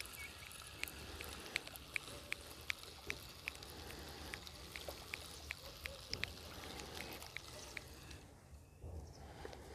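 Spinning reel on a feeder rod being wound in, giving a light click about two or three times a second with the turns of the handle, as a small roach is reeled in; the clicking stops about eight seconds in.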